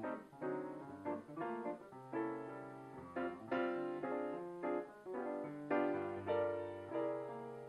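Solo piano playing a slow instrumental piece, with melody notes and chords struck every half second or so, each ringing out and fading.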